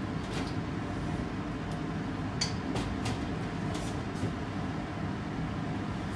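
Steady low rushing noise at a lit gas stove with an empty frying pan heating on it, broken by a few short light clicks and taps.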